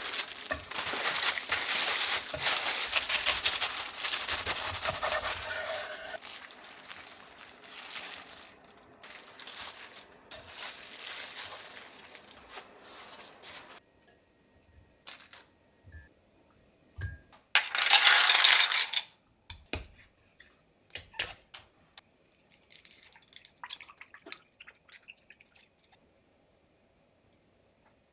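Plastic wrap crinkling and rustling for about fourteen seconds. After a short pause comes one loud rush of noise about a second long, then scattered light clinks.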